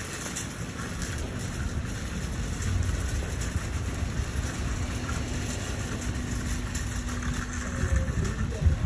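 Wind rumbling on the microphone over a steady outdoor hiss, with a few low gusts and a faint steady hum that holds for several seconds before dropping away.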